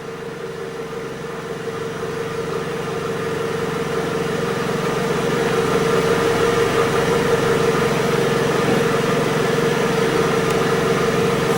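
Steady mechanical hum with a constant mid-pitched tone, like an engine or motor running, growing gradually louder over the first several seconds and then holding steady.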